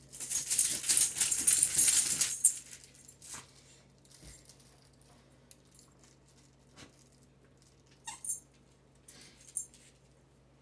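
Dogs biting squeaky dog toys: a dense run of rapid high squeaks for the first two and a half seconds, then short single squeaks about eight and nine and a half seconds in. A faint steady low hum sits underneath.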